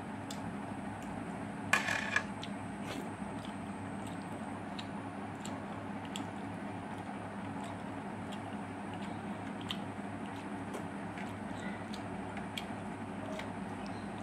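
Someone eating rice by hand from a steel compartment plate: soft squishing of fingers mixing food, small clicks and chewing, over a steady low hum. Two sharp knocks about two seconds in.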